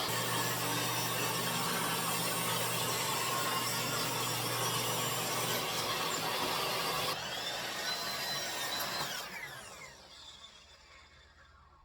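Power saw running through wood with a steady hum. About seven seconds in it is switched off, and the blade winds down with a falling whine.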